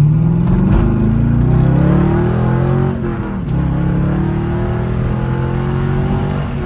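Chevrolet C5 Corvette's LS1 V8 revving hard at full throttle, heard from inside the cabin, its pitch climbing steadily. About three seconds in there is a quick upshift into third, and the engine pulls and climbs again. The gear goes in cleanly at high RPM, the sign that the new shifter has cured the lock-out from third.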